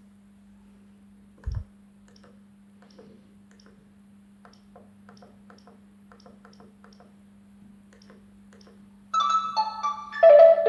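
Gigaset CL390 cordless phone ringtone: a synthesized, several-note melody that starts loud about nine seconds in. Before it there is a steady low hum, one short thump and a series of faint clicks.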